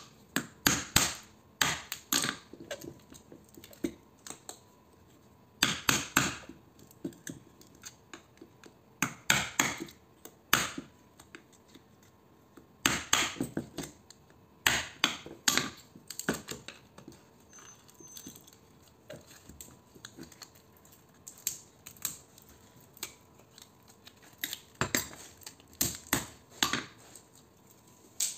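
Hammer striking the end of a screwdriver wedged into a small transformer's laminated steel core, driving it in to break the core apart and free the copper winding. The blows come as short clusters of sharp knocks with pauses between, about half a dozen clusters in all.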